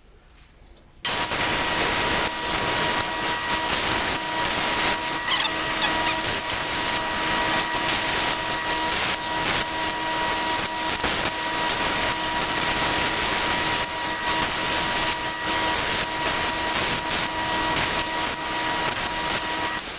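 Power grinder grinding the point of an engraving chisel made from coil-spring steel: a steady grinding noise with a steady whine in it, starting about a second in and stopping just before the end.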